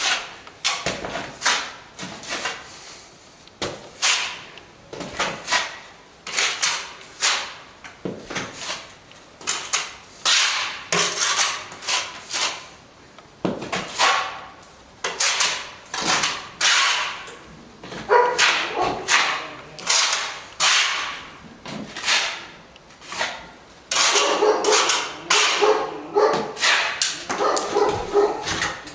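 A dog barking over and over, about one to two barks a second; from about 24 s in, a steadier sound runs under the barks.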